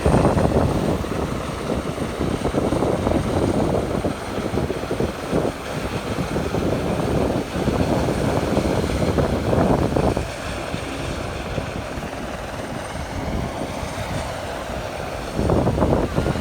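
Helicopter flying nearby, its rotor and engine making a loud, continuous rumble that swells and eases, dropping off somewhat about ten seconds in and growing louder again near the end.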